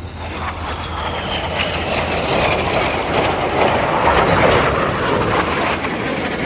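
BAE Hawk T1 jets with Rolls-Royce Adour turbofan engines flying past. A high whine falls in pitch as they pass, and the loud engine noise builds to its loudest about four seconds in.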